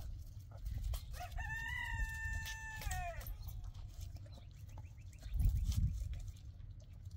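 A rooster crowing once, starting about a second in: a single crow of about two seconds that rises, holds its pitch, then drops away at the end.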